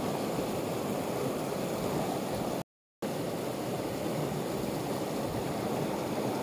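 Rushing water of a mountain torrent tumbling over boulders, a steady, even rush that cuts to silence for a split second a little under halfway through.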